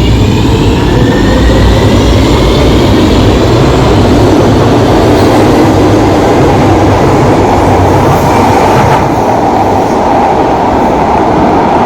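Electric metro or S-Bahn train accelerating: its motor whine rises over the first two seconds or so, then gives way to a steady, loud rolling noise of the train running on the track.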